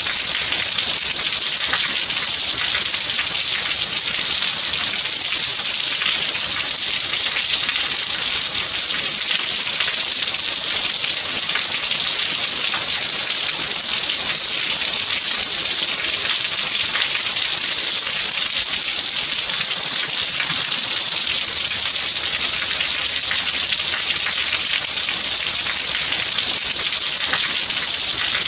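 Steady rain falling: an even, unbroken hiss of many small drops pattering, with no single event standing out.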